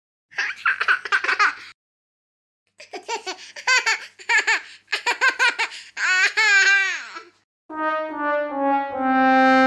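Several laughter sound effects in quick succession, with chuckling, giggling voices, then a brass "wah-wah-wah-waaah" sad-trombone sting: three short notes stepping down and a long held final note.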